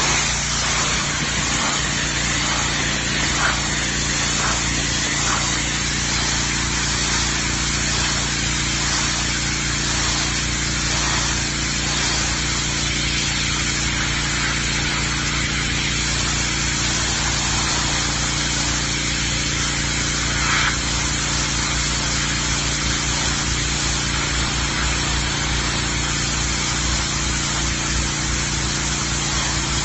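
Pressure washer running steadily, its engine drone under the hiss of high-pressure water spraying onto a concrete sidewalk.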